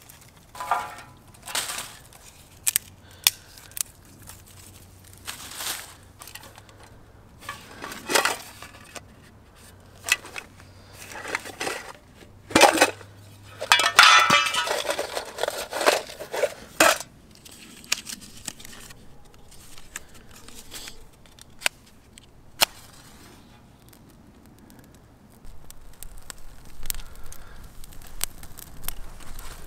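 Dry leaves and twigs being handled, snapped and laid in a steel fire ring, with rustling and sharp clicks and knocks against the metal, and one longer rustling spell about halfway through. In the last few seconds the kindling catches, with a steady low fire noise and small crackles.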